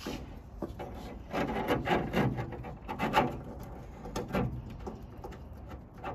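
Irregular knocks, clunks and scraping of metal parts being handled at a car's brake caliper, in a few short bunches, the loudest about a second or two in.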